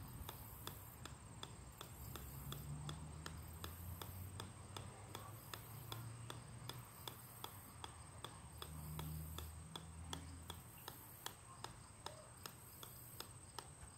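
Golf ball bouncing repeatedly on the steel head of an 8-pound sledgehammer: a sharp tick about three times a second in a steady, even rhythm.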